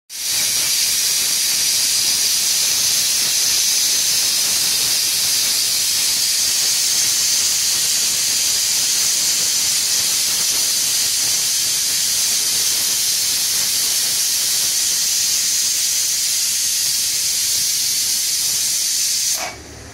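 Prestige pressure cooker whistling: steam jetting from the weighted vent in one long, loud, steady hiss that cuts off suddenly near the end. This is the sixth whistle, the count the cook uses to tell the curry is done.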